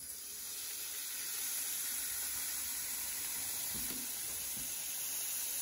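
Tap water running in a steady hiss onto green ume plums in a stainless-steel bowl, with a couple of soft knocks about four seconds in.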